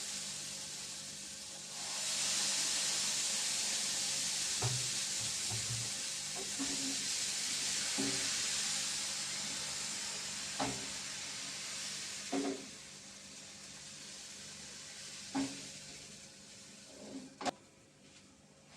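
Pancake batter sizzling in a hot frying pan. The sizzle swells about two seconds in and dies down over the second half, with several light knocks of a utensil against the pan.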